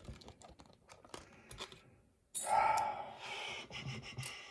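Small clicks and taps from a lock being handled as it is taken apart. A little over two seconds in comes a louder, longer scraping rustle.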